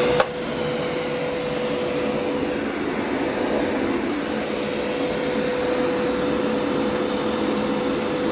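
Hoover Power Scrub Elite carpet cleaner running steadily: a constant tone over a rushing noise, with a sharp click just after the start.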